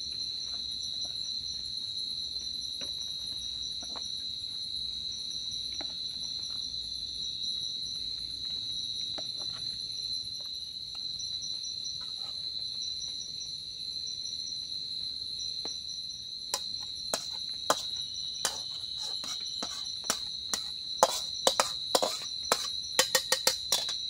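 A steady, shrill chorus of night insects holding one high pitch. From about two-thirds of the way through, a run of sharp clicks and knocks comes in, coming faster and closer together near the end.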